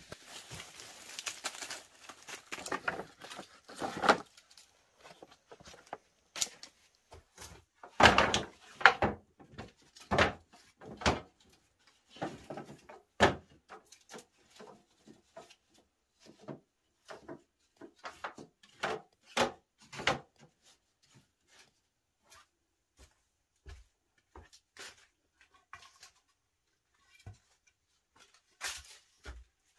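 Split bamboo slats knocking and clattering against each other and a pole bed frame as they are laid in place. The knocks come irregularly and are busiest over the first twenty seconds, then thin out to scattered taps.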